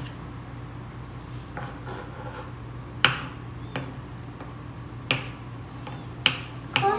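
Dinner knife cutting glacé cherries on a wooden chopping board: a few sharp knocks of the blade against the board, spaced a second or so apart, mostly in the second half.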